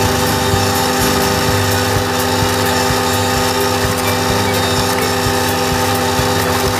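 Valtra A93 tractor's diesel engine running steadily under load, driving an Agrimaster KP2600 flail mower through its PTO shaft as it cuts grass: a constant drone with several fixed pitches.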